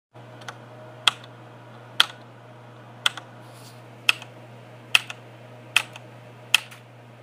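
Sharp clicks, about one a second but not perfectly regular, over a steady low electrical hum.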